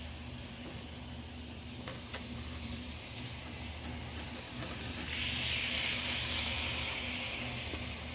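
Kato N-scale D51 model steam locomotive running past close by: a hissing whir from its motor and wheels on the rails swells about five seconds in and fades again. There is a single sharp click a couple of seconds before it, over a steady low hum.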